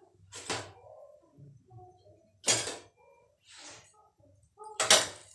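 Paper rustling in four short crinkles about a second apart, as cooked parathas are handled on a sheet of paper.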